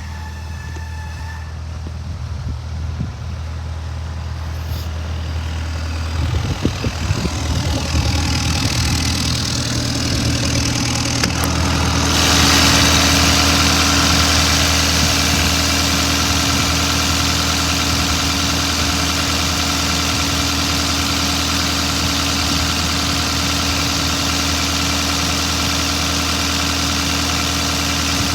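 IHI 55V4-F excavator's diesel engine running steadily, with a few clunks about seven seconds in. About twelve seconds in it grows louder, with a steady hiss and whine over the engine note.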